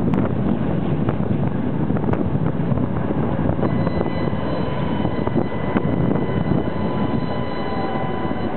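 Tatra T5C5 tram running along the track, heard from inside the car: a steady rolling rumble with scattered clicks. A faint, steady high whine joins about halfway through.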